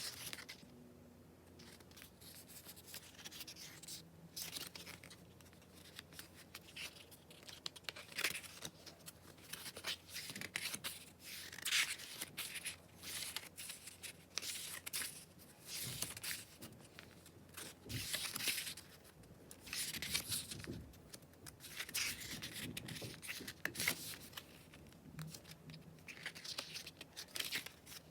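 Packaging being opened and handled by hand: a run of irregular rustling, tearing and scraping sounds, like plastic wrap and paper being torn and pulled off.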